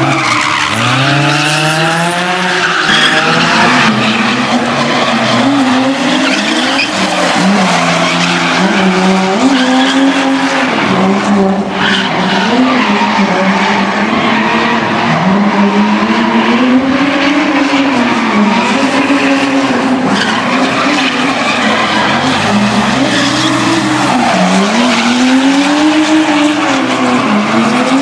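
Car engine revving hard and falling back over and over while drifting, each rise and fall lasting about one to two seconds, with continuous tyre squeal and skidding from the sliding rear wheels.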